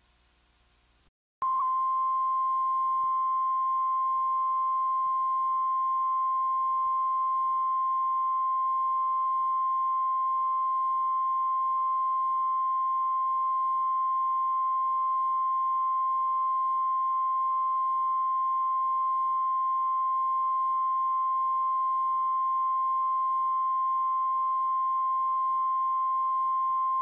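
Steady, high-pitched line-up test tone recorded with colour bars on a videotape. It starts about a second in, after a moment of faint tape hiss and a brief dropout, and holds at one pitch without a break.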